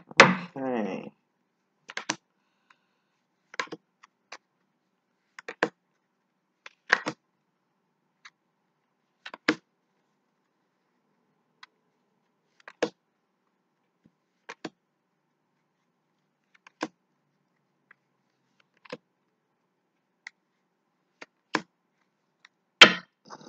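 Tarot cards being shuffled and handled on a table: short, sharp clicks and snaps, one every second or two, with silence between and a louder snap near the end.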